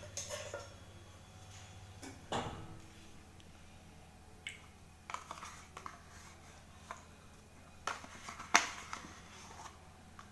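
A metal spoon scraping yogurt out of a plastic yogurt cup into a ceramic bowl, with scattered clicks and taps of the spoon against the cup and bowl, the sharpest about eight and a half seconds in.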